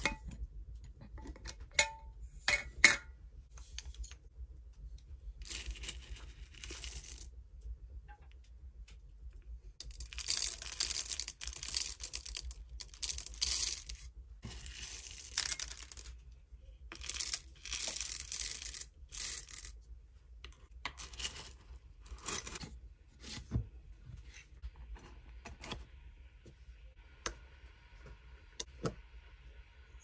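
Whole coffee beans poured into a stainless steel hand-crank coffee grinder, rattling against the metal hopper in several pours. A few sharp clicks from a jar lid being unscrewed come first, and light clicks and taps near the end as the grinder's crank handle is fitted.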